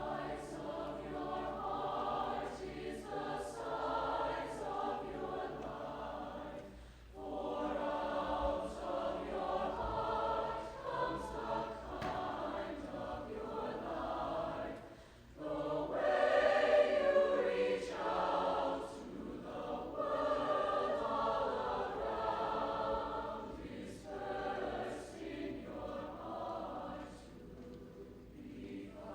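High school choir singing a held, multi-voice passage in phrases, with brief breaks between phrases about 7 and 15 seconds in.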